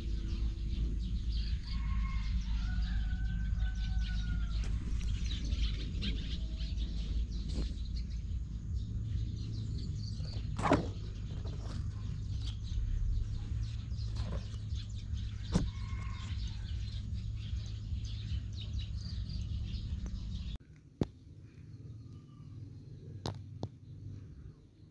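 Outdoor garden ambience: distant birds calling over a steady low rumble, with a few sharp clicks. The rumble cuts off suddenly about twenty seconds in, leaving it quieter.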